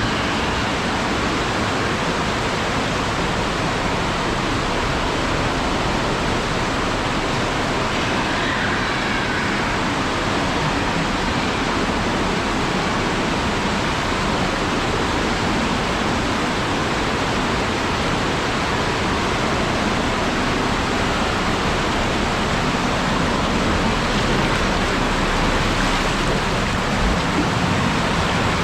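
Water rushing steadily down a waterslide channel, heard up close: an even, loud rush of water with no break.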